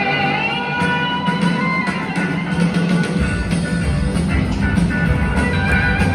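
A live rock band heard from the audience: electric guitars over bass and drums, with a lead guitar line gliding in pitch in the first couple of seconds. The bass and drums get heavier about three seconds in.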